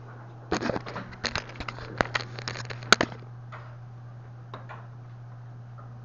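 Handling noise as the camera is picked up and moved: a dense run of scrapes, clicks and fabric rubbing against the microphone for about two and a half seconds, the sharpest click near the end of it. Under it, a steady low hum.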